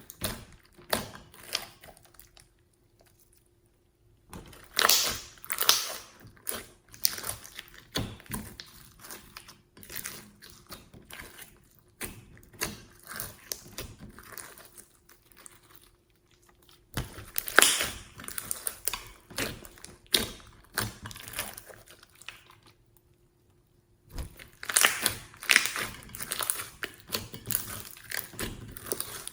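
Slime being squished, pressed and stretched by hand, making irregular sticky popping and crackling clicks. The sound stops twice for a second or two.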